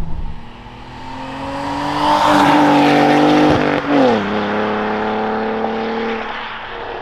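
BMW E46's straight-six through a valved cat-back exhaust, driving past under acceleration: the exhaust note climbs and gets louder as the car approaches, drops sharply in pitch as it passes about four seconds in, then holds a lower, steadier note as it pulls away.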